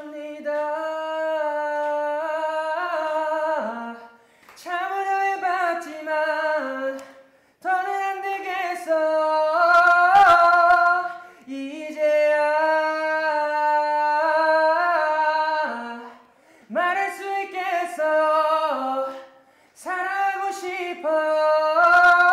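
Outro jingle: a solo voice singing a light melody unaccompanied, in six short phrases with brief pauses between them.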